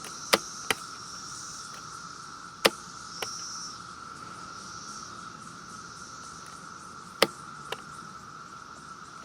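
Chorus of periodical cicadas: a steady high whine with slower swelling pulses higher up. Over it come several sharp clicks, mostly in pairs, from the chainsaw's choke and throttle trigger being worked to latch the choke for a cold start.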